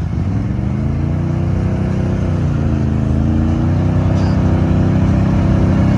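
ATV engine revving hard under load in deep mud, pitch climbing, sagging briefly about halfway through, then climbing again and holding high as it gets louder.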